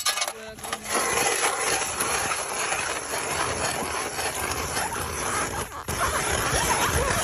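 A drill boring into ice: a steady grinding hiss that starts about a second in, breaks off briefly about six seconds in, and then carries on.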